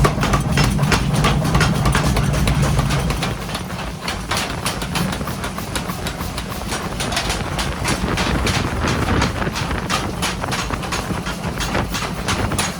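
Steel being hammered in forging: irregular sharp metal strikes, a few each second, over a steady low machine hum.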